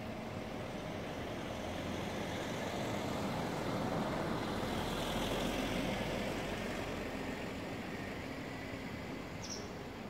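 City traffic noise: a steady rumble and hiss that swells as a vehicle passes, loudest mid-way, then fades. One short high chirp sounds near the end.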